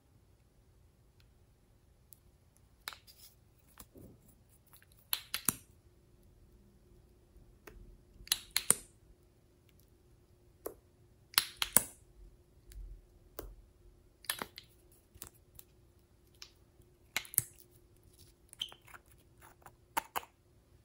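Scattered small clicks and short crackles of hands handling a glass nail polish bottle and a plastic lip gloss tube: caps twisting and pulling off, wands scraping and tapping. A faint steady hum runs beneath.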